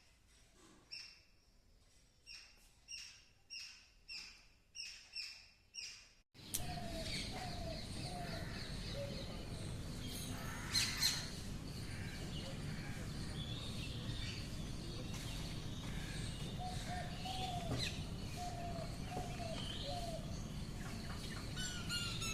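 A bird calling repeatedly, about nine high notes at an even pace. Then, after an abrupt change, a steady outdoor background with scattered bird chirps and a brief louder sound about halfway through.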